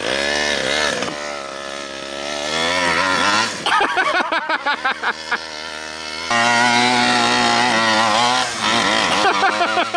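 The Primal RC Raminator monster truck's 49cc two-stroke reed-valve engine revs up and down as the truck drives over dirt. It revs up at the start, goes choppy in the middle, and jumps suddenly to a louder, steady higher rev about six seconds in, then turns choppy again near the end.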